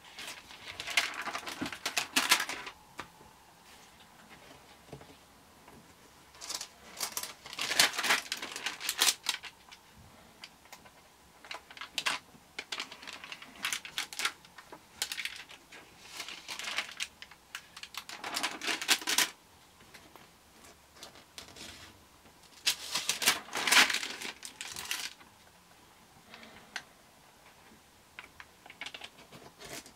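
Pages of a stamp album being turned by hand: stiff album leaves and their thin translucent interleaving sheets rustling and clicking. This comes in clusters of a second or two every few seconds, with quiet gaps between them.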